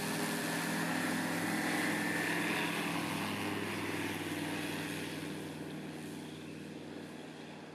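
Skyranger Swift ultralight's propeller engine running under power on the takeoff roll. It grows loudest as the plane passes close, about two to three seconds in, then fades as it lifts off and climbs away.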